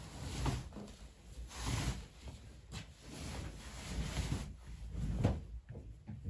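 Household items being handled: several soft thuds and rustles, about one a second, like things being set down or a drawer or cupboard being worked.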